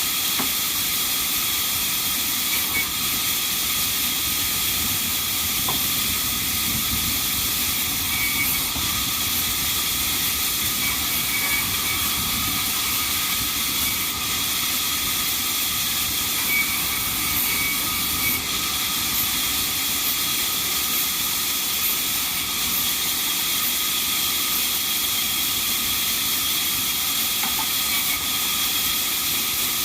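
Sawmill band saw running and cutting through timber: a steady, high-pitched hiss with a faint whine that goes on without a break.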